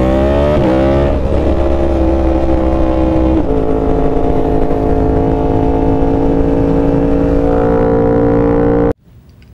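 Sport motorcycle engine under way: its pitch climbs in the first half second, drops at a gear change, then holds a steady cruise. The sound cuts off abruptly near the end.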